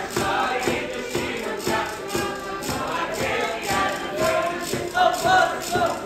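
Traditional Madeiran folk music: a group of voices singing over a quick, steady percussion beat.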